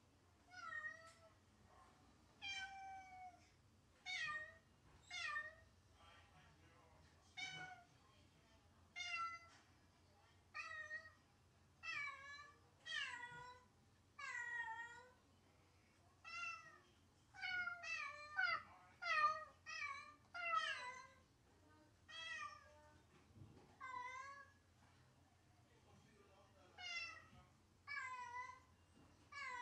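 A cat meowing over and over, about twenty-five short calls that each bend in pitch, coming roughly once a second and crowding together and growing loudest around the middle: the lonely crying of a cat with separation anxiety.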